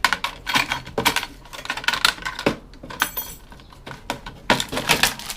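Hand tools and metal parts clinking, clicking and rattling in quick, irregular knocks as a PC-like electronics unit is taken apart to free a circuit board, with a brief high ringing a little past the middle.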